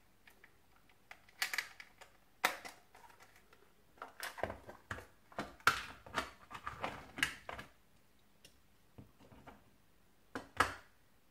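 Plastic clicks, knocks and rattles from a Lima HST model power car as its body is pulled off the chassis and the parts are handled on a cutting mat. There are scattered clicks early on, a busy run of them in the middle, and one sharp click near the end.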